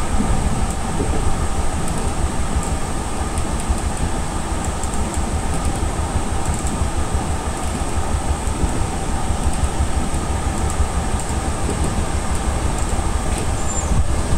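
Enshu Railway 2000-series electric train running at speed, heard from inside the driver's cab: a steady low rumble of wheels on rail with a steady hum.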